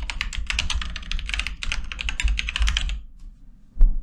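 Typing on a computer keyboard: a quick run of keystrokes that stops about three seconds in, followed by a single louder thump near the end.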